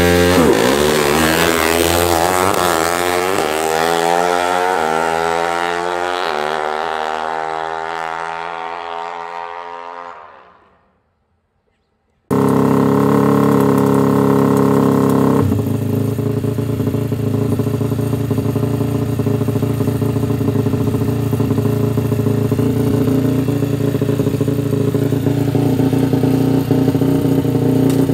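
KTM drag bike's engine accelerating hard through several gear changes: the note climbs, breaks and climbs again, fading as the bike pulls away, then cuts off. After a second of silence the engine is heard running at a steady pitch.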